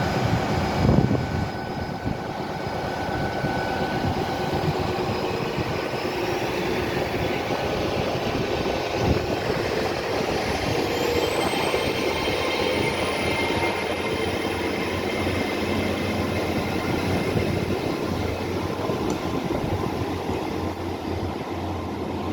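A train running at the station, its steady mechanical noise joined partway through by a high whine that climbs in pitch. There is a loud bump about a second in.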